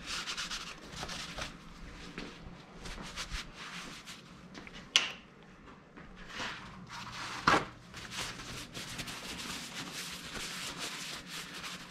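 Shop towel rubbing on a concrete floor as spilled oil is wiped up, followed by scattered handling noises with two sharp knocks midway.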